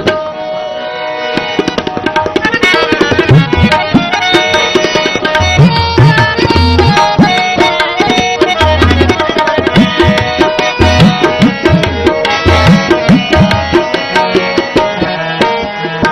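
Instrumental interlude of a Sikh devotional shabad: tabla strokes under a melodic instrument carrying the tune, with no singing. The tabla comes in about a second in, its deep bass strokes recurring through the passage.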